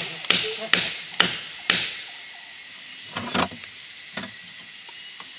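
Chopping: a run of sharp strikes, about two a second, that stops about two seconds in, followed by a few scattered knocks.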